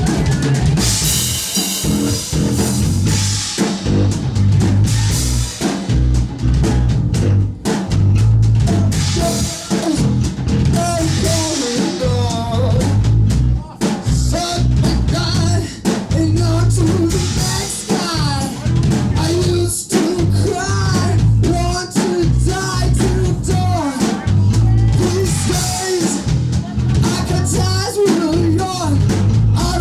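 Band music with a pounding drum kit and heavy bass, joined by a singing voice about ten seconds in.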